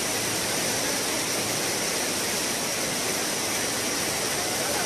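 Brown floodwater rushing down a street in heavy rain: a steady, even rush of water noise.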